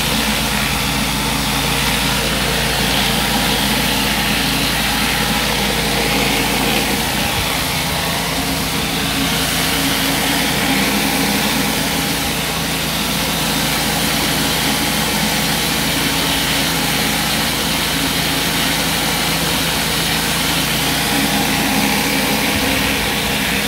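Pressure washer running steadily, a constant motor hum under the hiss of high-pressure water jets spinning beneath a flat surface cleaner as it is pushed over wet block paving.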